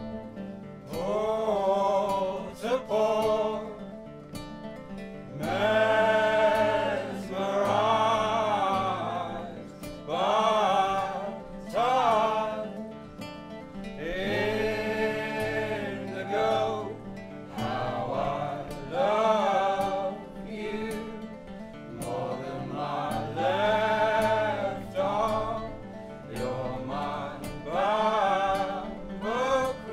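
Live acoustic folk music: a man singing over nylon-string classical guitars being played.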